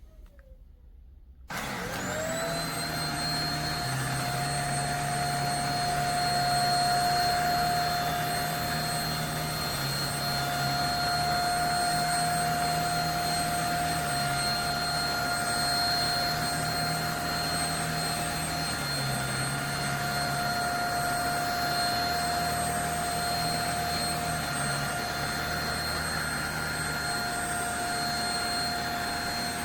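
JPHYLL Ultra-UVC-K16 mattress vacuum switched on about a second and a half in: its motor spins up with a rising whine, then runs steadily with a high whine over the rush of suction.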